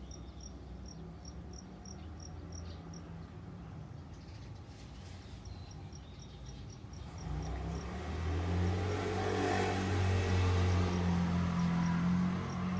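Insects chirping in a steady high pulse, about four chirps a second. About halfway through, a motor vehicle approaches and passes by, its engine hum growing loud and then easing off near the end.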